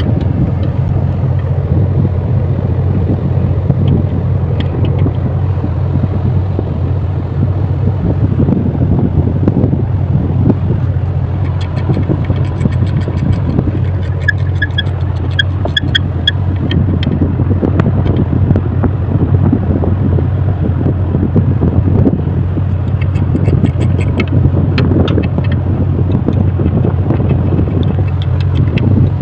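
Steady low rumble of wind and ship noise on an open radar mast at sea, with a few light metallic clicks of a hand wrench working on the radar scanner's pedestal.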